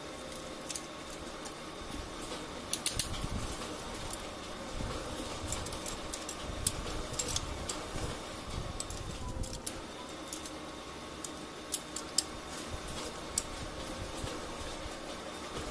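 Scattered clicks and light clatter of plastic and sheet-metal parts being handled as an HP LaserJet 4515/M4555 fuser assembly is taken apart by hand, over a steady background hum.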